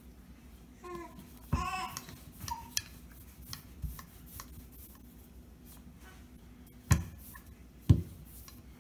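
Rolling pin working sweet pastry dough on a silicone baking mat: soft rubbing and handling with a few sharp knocks, the two loudest about a second apart near the end.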